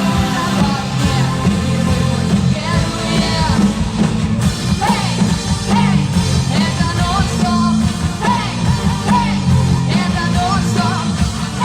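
Band music with a singer: a vocal-instrumental ensemble song with a steady bass line under the voice, the singing coming in about two and a half seconds in.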